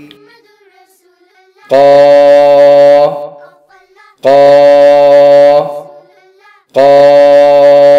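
A voice pronouncing the Arabic syllable 'qā' (qaf with a long alif), drawing out the long vowel for over a second, three times. Soft background music plays in the gaps.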